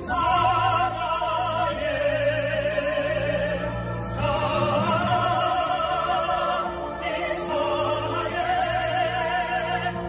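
A vocal group singing through microphones in long held notes with vibrato, over a low sustained accompaniment. The vocal phrases break about four seconds in and again near seven seconds.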